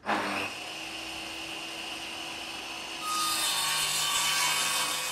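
Saw cutting through wood, a steady rasping cut that grows louder about three seconds in and then fades away.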